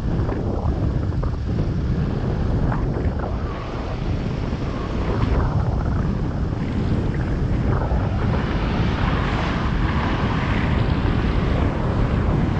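Wind rumbling over the microphone of a GoPro Hero 7 Black on a moving bicycle, a steady low buffeting, with traffic noise from the slow-moving cars alongside mixed in and a few brief rattles.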